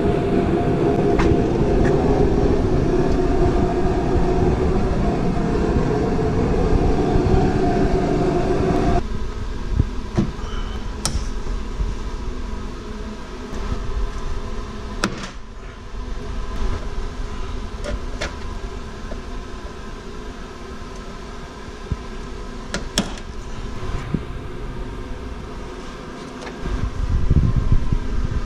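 A steady low rumble, heavier for the first nine seconds and again near the end, with a few sharp clicks as plastic trim clips are pried out of a car's trunk-lid lining with pliers.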